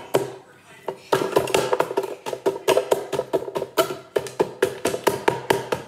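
A knife jabbed rapidly into frozen fruit in a plastic blender jar, striking the fruit and the jar walls in quick clacking strokes, about five a second with a brief pause near the start, each hit ringing briefly.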